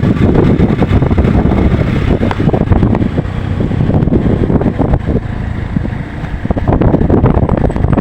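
Strong wind buffeting the microphone: a loud low rumble that swells and eases with the gusts.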